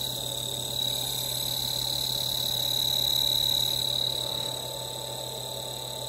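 Gutted single-cylinder refrigerator compressor, reed valves removed and run dry with no oil, turning over very slowly on a variable frequency drive at about 2 Hz. Heard as a steady low hum under a steady high whine.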